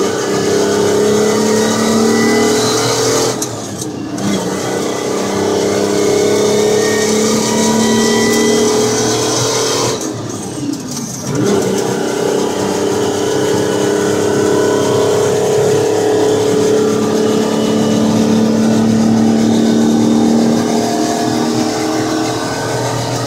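GM Detroit Diesel 6V53 two-stroke V6 diesel pulling the Dodge 700 truck, heard from inside the cab. Its pitch climbs steadily, with two short breaks, about four and eleven seconds in, where the revs drop for gear changes in the 10-speed Roadranger gearbox.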